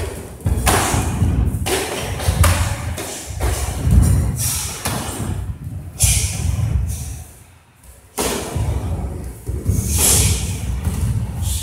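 Repeated thuds and slaps of feet and strikes during karate practice, coming in quick irregular bunches with a short lull about two thirds in.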